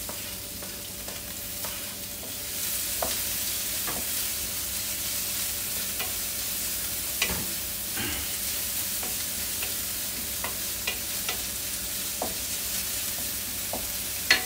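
Chopped garlic and onion sizzling in hot oil in a wok, getting a little louder about two and a half seconds in as the onion cooks. Scattered short clicks and scrapes of a wooden spatula stirring against the pan, with one sharper knock near the end.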